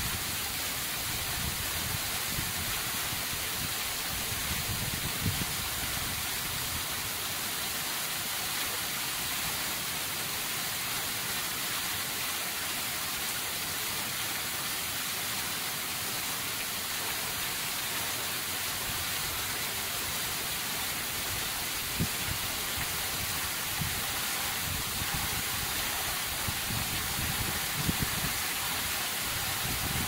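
Waterfall spilling down an andesite cliff, heard from just behind the falling water: a steady, even hiss of drops and thin streams splashing onto rock and into the pool. Now and then there is a brief low thump.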